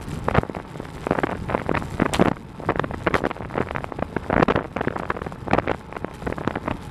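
Wind buffeting the microphone of a camera on a road bicycle moving at speed, in irregular gusts over a steady low road rumble.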